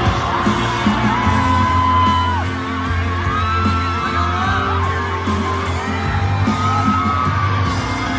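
Live pop band music, with high held screams and whoops from the audience rising over it several times.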